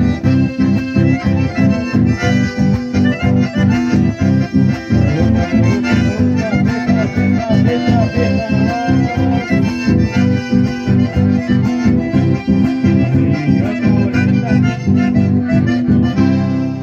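Live chamamé music: two accordions playing the melody over acoustic guitars, with a steady bouncing rhythm.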